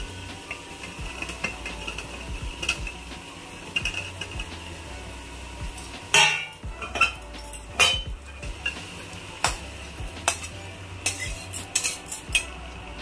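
A steel spoon scraping and clanking against an aluminium cooking pot and a steel plate as fried vegetables are tipped in and stirred into the masala, with louder clanks about six and eight seconds in.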